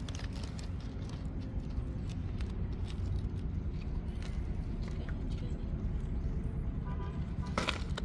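Steady low rumble with a few faint clicks, and a brief louder noise near the end.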